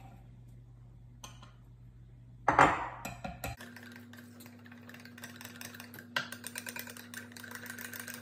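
A bowl set down on the counter gives one loud knock about two and a half seconds in. After it, a wire whisk clicks fast and steadily against a glass measuring jug as pancake-style batter is beaten smooth and free of lumps.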